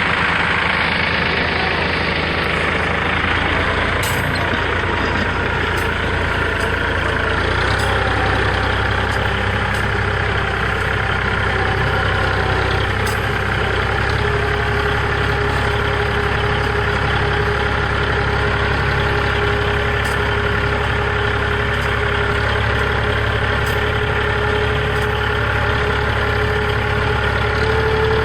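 Tractor engine running steadily while it pulls a middle buster through a potato row. A steady whine joins the engine note about halfway through.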